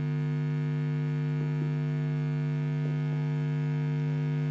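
Steady low electrical hum from the microphone's sound system: a mains buzz holding one pitch with many overtones.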